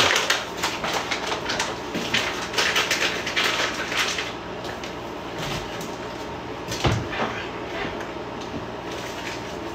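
Kitchen handling noises: rapid rustling and light clatter for the first few seconds, then a single sharp knock about seven seconds in, over a faint steady low hum.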